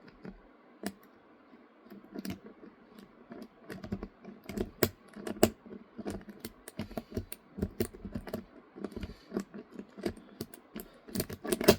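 A Sparrows city rake worked in and out of a Master Lock 140D padlock's keyway, giving fast, irregular clicking and scraping of metal on the lock's pins. The clicks grow denser and louder after a few seconds, with a burst of them near the end.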